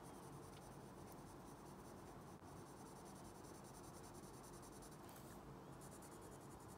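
Faint scratching of a mechanical pencil on paper, shading the top of a drawn ship's funnel dark.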